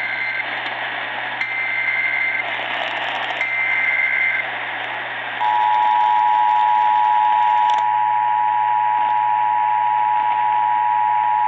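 Emergency Alert System signal received over a radio with static hiss. The first part is the digital SAME header: screechy one-second data bursts, the tail of one burst followed by two more about two seconds apart. From about five seconds in comes the steady two-tone attention signal, which is loud and keeps going. Here it introduces a severe thunderstorm warning.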